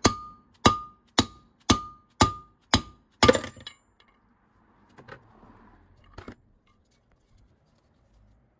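Hammer blows on a 32 mm socket set against a bearing's inner race, about two a second, each with a short metallic ring, the last and loudest a little after three seconds, then two lighter knocks near five and six seconds. They are driving the bearing and seal out of the transmission's rear bell housing.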